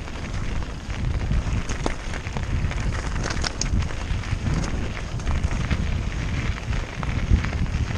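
Mountain bike tyres crunching and clattering over loose stones and rock on a fast descent, with wind rumbling on the camera's microphone and scattered clicks from the bike rattling; a sharper knock comes near the end.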